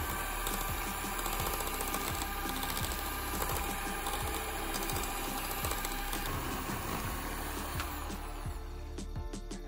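Electric hand mixer running steadily, its wire beaters whirring through a thin cake batter; the motor stops near the end.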